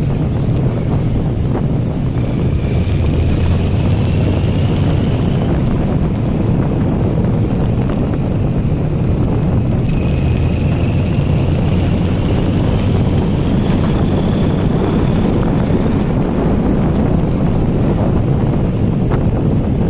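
Motorcycle riding at speed, with heavy wind buffeting the microphone over the steady engine drone. A faint high whine rises slowly in pitch twice, in the first few seconds and again about halfway through.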